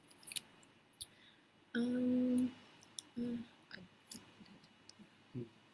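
A voice humming a held 'mmm' about two seconds in, then a shorter hum a second later, with a few faint clicks.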